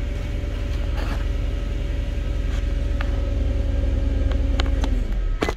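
2008 Infiniti G35's 3.5-litre V6 idling with a steady low rumble, heard from inside the cabin, run after an oil change to circulate the fresh oil before the level is rechecked. About five seconds in the engine is switched off and the rumble stops, followed by a sharp click.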